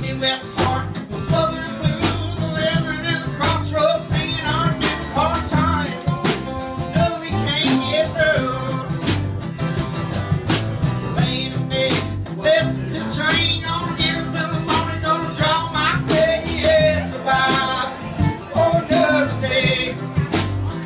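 Live Americana band playing: strummed acoustic guitars, electric bass and a drum kit keeping a steady beat.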